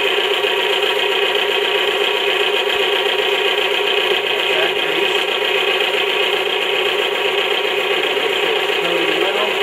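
Electric motor of a bench grease-test rig running steadily, spinning a steel shaft against a lever-loaded test block lubricated with multi-purpose marine grease. It makes a loud, even whine with a harsh, high edge that does not change.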